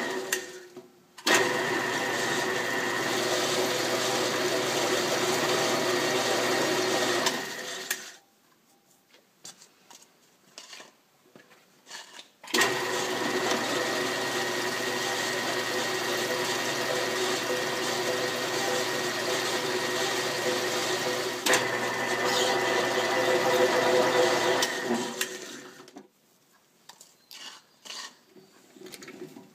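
Drill press motor running steadily while boring a pin hole in steel, in two long runs of about seven and thirteen seconds, with light clicks and taps in between.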